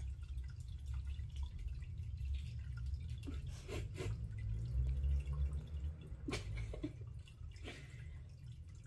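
Grooming brush drawn through a cat's fur: scattered short scratchy strokes and clicks over a low rumble.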